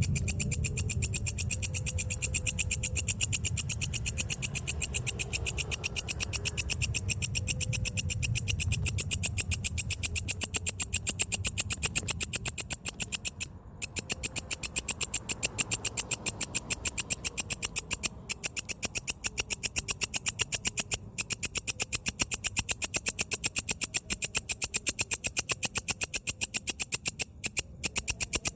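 A katydid calling: a fast, regular train of raspy clicks, several a second, broken by brief pauses about halfway through and a few times near the end. A low rumble sits underneath for the first dozen seconds.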